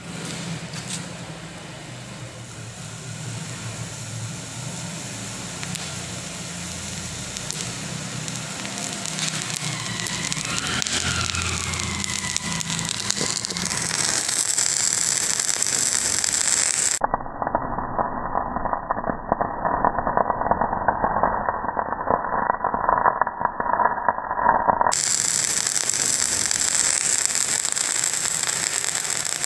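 Potassium permanganate and glycerin mixture reacting and burning, a crackling, hissing fire with many small pops that grows louder over the first dozen seconds. For a stretch in the middle it sounds muffled.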